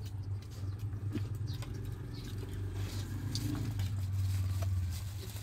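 Close-up eating sounds: chewing and small wet clicks as boiled cow head meat is chewed and pulled apart by hand, over a steady low hum.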